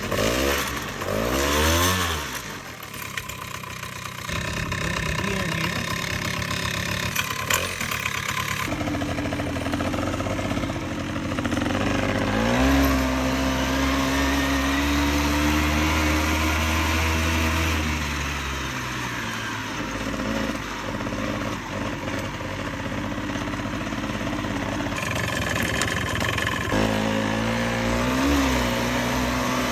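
Small engine of a 1980s Rokon Mototractor running in neutral after a carburettor cleaning, revved up and down a few times and otherwise idling. It idles without flooding itself out but still runs rough: the carburettor needs a rebuild kit.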